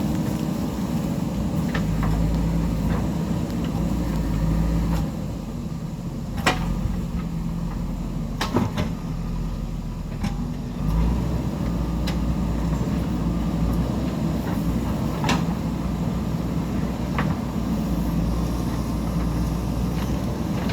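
JCB backhoe loader's diesel engine running under working load, easing off for a few seconds midway and then picking up again. A handful of sharp clanks and knocks are scattered through it, from the digging gear and the rock it works.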